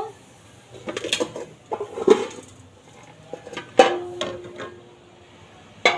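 Metal ladle and lid clinking against a metal cooking pot on a clay stove: a few knocks, the loudest about four seconds in leaving a ringing tone for about a second and a half.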